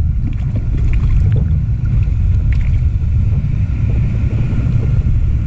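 A steady low rumble of wind and surf on a head-mounted GoPro's microphone.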